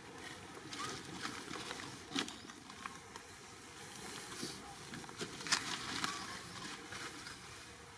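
Dry fallen leaves and twigs rustling and crackling as a baby macaque picks at them with its hands, in scattered small crackles, a few sharper ones about two seconds in and again between five and six seconds.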